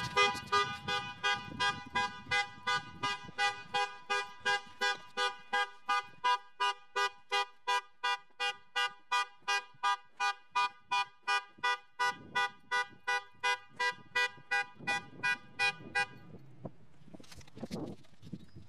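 Car alarm sounding the horn in rapid, evenly spaced honks, about three a second, stopping suddenly about 16 seconds in.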